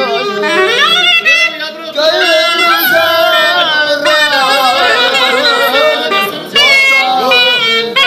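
Clarinet playing a folk melody full of bends and slides, with a man singing loudly along. The music breaks off briefly twice.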